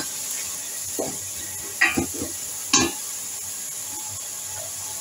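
Wooden spatula stirring and scraping chopped onions frying in ghee in an aluminium pot: three scrapes in the first three seconds, then a steady light sizzle.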